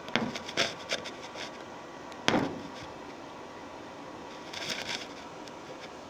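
Handling knocks and scrapes against a plastic exhaust flue pipe: a few sharp taps in the first second, a louder knock about two seconds in, and a crackly cluster near the end. They sit over the steady rush of the gas water heater's exhaust blower.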